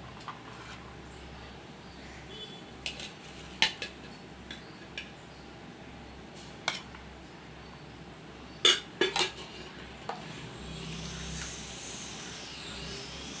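Steel serving spoon clinking against a metal vessel as cooked rice is scooped out and served, a dozen or so sharp, irregular clinks with the loudest cluster about two-thirds of the way in.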